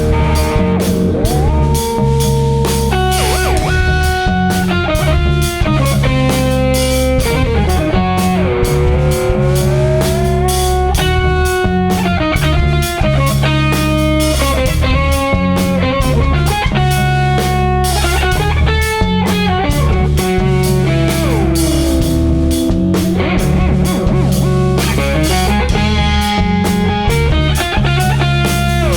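Instrumental passage of a small rock/blues band: baritone guitar and drum kit keep a steady groove under a lead line of held notes that slide between pitches.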